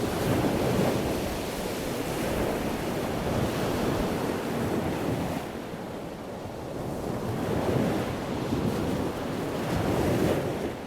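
Ocean surf: waves washing in and drawing back in slow swells, a steady rushing noise that dips for a moment a little past halfway and then builds again.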